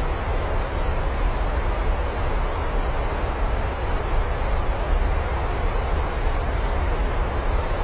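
Steady rain falling, an even hiss with a low rumble underneath and no separate drops or thunder standing out.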